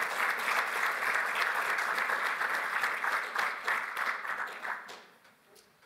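Audience applauding, a dense patter of clapping that thins out and stops about five seconds in.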